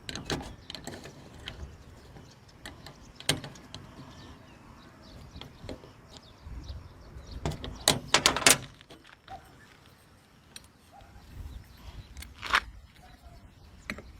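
Scattered sharp clicks and knocks, as of hand tools and scooter parts being handled; a quick cluster of knocks about eight seconds in is the loudest.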